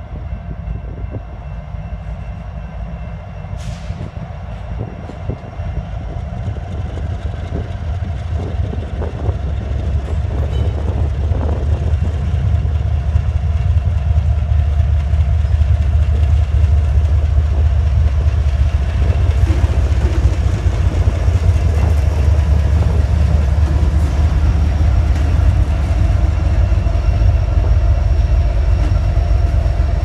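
Freight train led by a Norfolk Southern GE ES40DC diesel locomotive approaching and passing, with a heavy low engine rumble. The rumble grows louder over the first half and then stays loud as the trailing Union Pacific SD70ACe goes by.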